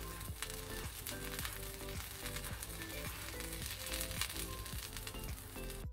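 Flatbread frying in a hot frying pan, sizzling with fine crackles, under background music.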